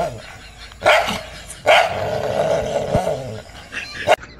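A dog barking aggressively at its own reflection in a mirror. Two loud barks come about a second in and just under two seconds in, the second drawn out into a growl, then a short bark near the end.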